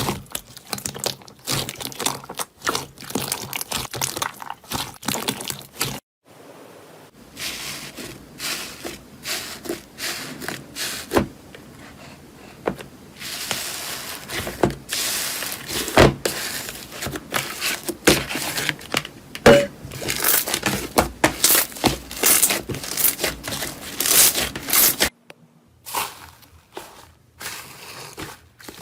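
Slime being squished, stretched and poked by hand: rapid sticky crackles, pops and wet clicks. There are three separate clips, each broken off by a short drop to silence about six seconds in and again near the end.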